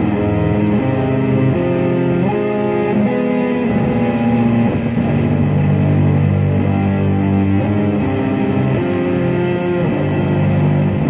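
Guitar run through heavy effects, playing a dark ambient improvisation: layered, sustained notes that shift every second or so over a steady low drone.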